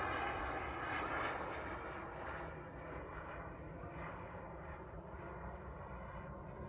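JetCat P250-Pro-S model jet turbine on a large radio-controlled jet, a steady roar with a whine in it, growing fainter from about a second in as the aircraft moves away.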